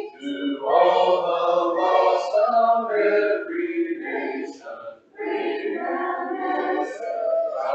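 Congregation singing a hymn a cappella, men's and women's voices together in parts, with a brief break for breath about five seconds in.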